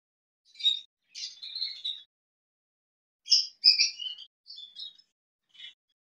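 Budgerigars chirping: short, scratchy calls in five bursts, the loudest about three and a half seconds in.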